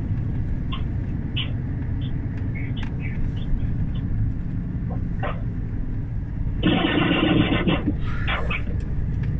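Steady low drone of a Renault truck's diesel engine and road noise inside the cab, with faint scattered ticks. About seven seconds in, a louder vocal sound of about a second comes from the driver, her hand over her mouth.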